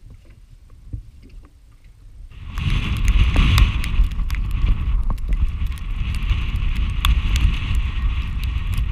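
Wind buffeting the microphone over choppy lake water, beginning suddenly about two seconds in, with a steady higher whine and scattered sharp clicks running along with it.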